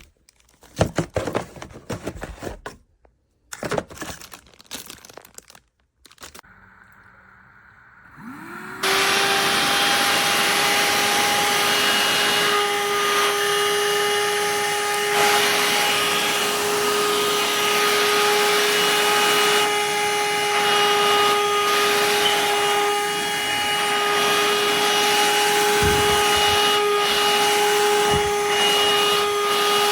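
A few seconds of handling clatter and rubbing. Then, about nine seconds in, a FUOAYOC cordless handheld vacuum cleaner switches on: its motor spins up quickly to a steady high whine over a rush of air, and keeps running.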